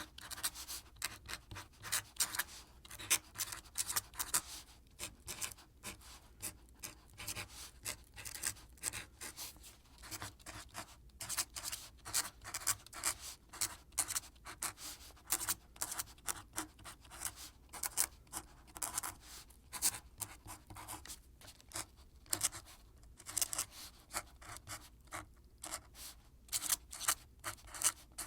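Quill pen scratching across paper in quick, irregular strokes, a dry scratchy sound that goes on without pause.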